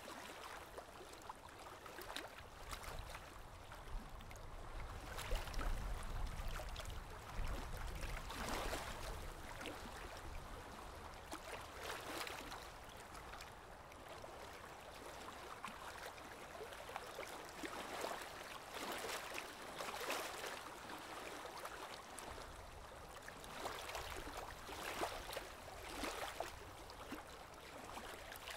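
Soft, irregular rustling and scraping of yarn being worked with a crochet hook close to the microphone, with a swish every second or two and a brief low rumble of handling a few seconds in.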